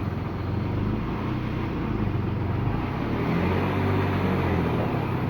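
Mazda Xedos 6 engine running steadily with the car in forward gear, a low hum that grows a little louder about three seconds in.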